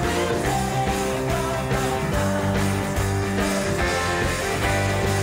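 Live band playing music with a steady beat.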